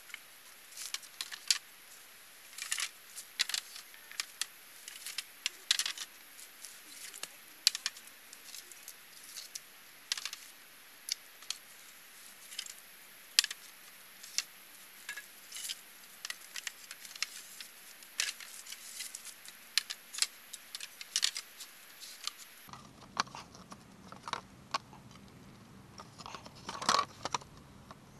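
Hollow green bamboo poles clacking and knocking against one another and against the bamboo frame as they are laid side by side to form a table top: a long run of sharp, irregular knocks.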